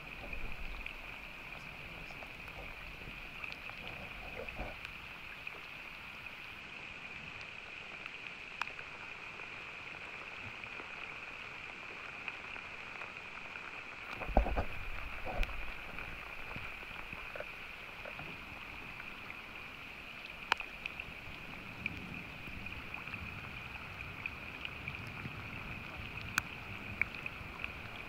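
River ambience in light rain: a steady high-pitched drone with scattered small ticks of raindrops. About halfway through comes a short louder splash on the water, a fish striking at a topwater lure.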